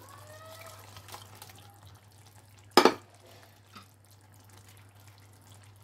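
Fried fish pieces being slipped into a pan of simmering gravy: faint bubbling and dripping, with one sharp clack against the pan about three seconds in.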